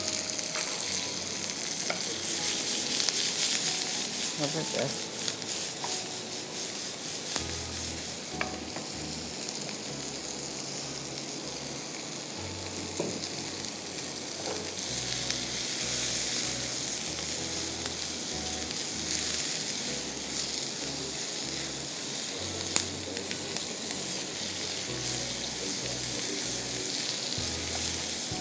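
Julienned green capsicum and sliced onion sautéing in oil in a frying pan, a steady sizzle with a few small clicks.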